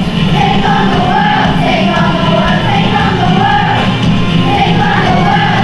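Children's choir singing a wavering melody over a steady low accompaniment.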